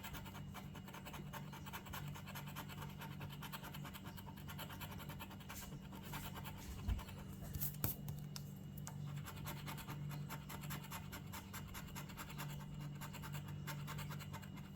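A scratch-off lottery ticket being scratched: rapid, continuous scraping strokes wearing off the coating, with two sharper clicks about seven and eight seconds in.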